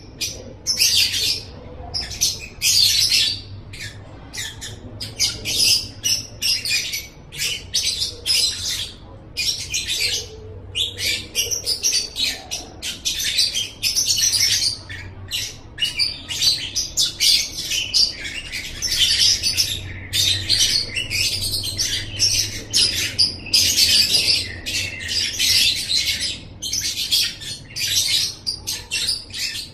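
Lovebird ngekek: long runs of rapid, shrill chattering calls, broken by short pauses every second or two.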